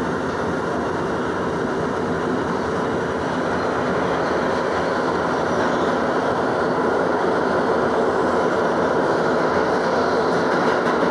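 An R62 New York City subway train running through a tunnel, heard from inside the car: a steady rumbling running noise that grows slightly louder.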